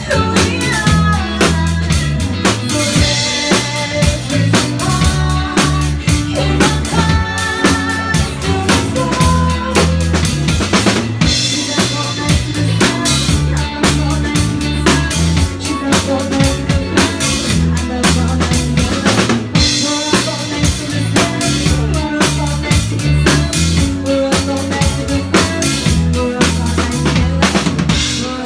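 Live rock-pop covers band playing, the drum kit's bass drum and snare keeping a steady beat under bass, guitar and a female lead vocal.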